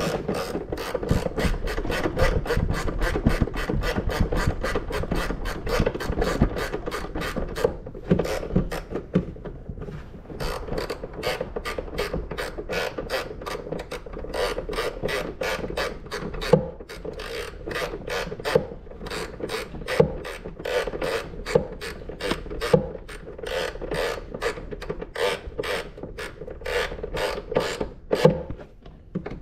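Hand socket ratchet clicking in a long steady run as a bolt is driven in with short back-and-forth strokes of the handle, with a brief lull about eight to ten seconds in.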